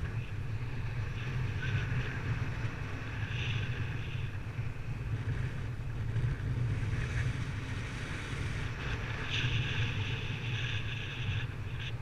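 Wind rushing over the microphone in flight: a steady low rumble with a hiss that swells and fades, loudest about nine to eleven seconds in.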